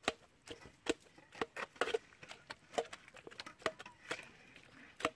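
Steel tumbler chopped down again and again through soft boiled papaya, its rim knocking the metal bowl beneath. Sharp, unevenly spaced knocks, about two or three a second.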